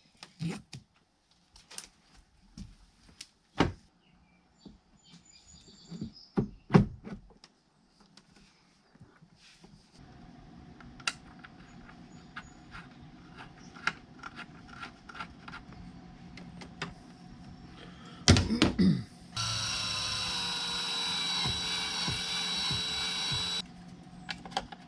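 Scattered clicks and knocks of small parts and tools being handled while a steering wheel is fitted to a hydraulic steering helm, with one louder clunk about eighteen seconds in. Then a power tool runs steadily for about four seconds and stops abruptly.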